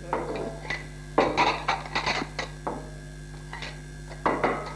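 Crockery clattering as tables are laid, in several short bursts with the busiest stretch starting about a second in, over a steady electrical hum.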